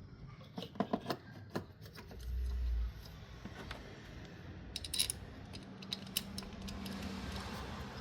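Scattered light clicks and taps of handling, with a low bump about two seconds in.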